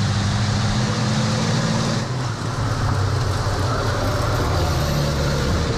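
Onboard sound of a turbo-diesel racing truck under hard acceleration, engine running loud and steady at high revs with wind and road noise over it.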